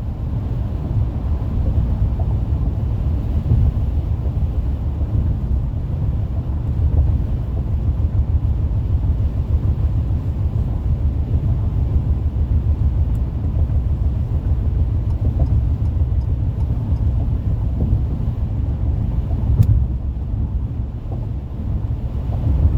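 Car cruising on a freeway: steady low road noise from tyres and engine, with one brief tick near the end.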